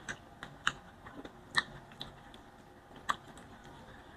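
A few soft, sharp mouth clicks and smacks of a man chewing food close to the microphone, spaced irregularly, the loudest about a second and a half in and again about three seconds in.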